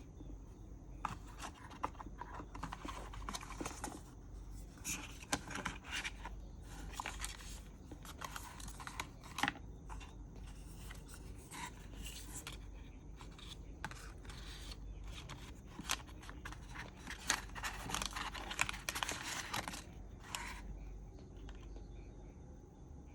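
Artisan keycap packaging being opened and handled by hand: rapid rustling, scraping and small clicks that stop about twenty seconds in.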